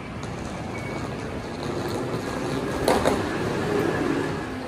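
Steady rumbling background noise at a terminal entrance, with a single sharp knock about three seconds in and a brief low hum after it.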